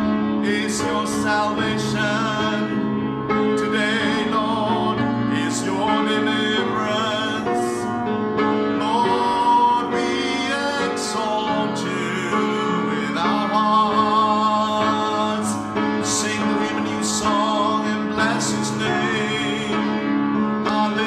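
Worship song: a voice singing a slow melody over piano and sustained keyboard chords.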